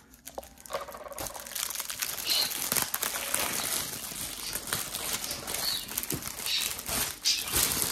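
Clear plastic wrapping crinkling and rustling as it is handled and pulled off a large plastic-sleeved portfolio, a dense stream of small crackles.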